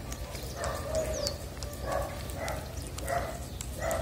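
Striped tabby cat chewing food from a plastic dish close to the microphone, in a steady rhythm of about three chews every two seconds.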